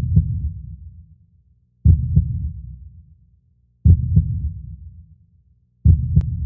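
Deep, slow heartbeat-like pulse: four double thumps about two seconds apart, each trailing off into a low rumble. The last is topped by a brief sharp click.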